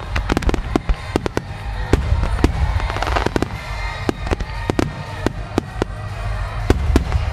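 Star mine fireworks barrage: shells bursting in quick succession, several bangs a second, over a continuous low rumble.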